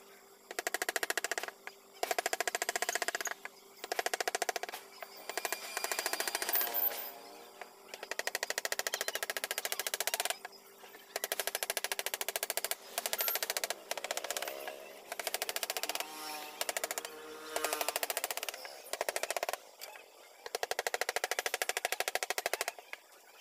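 Wooden mallet tapping a carving chisel in rapid runs of light strikes, each run lasting a second or two with short pauses between, as the chisel is driven along the outline of a relief carving.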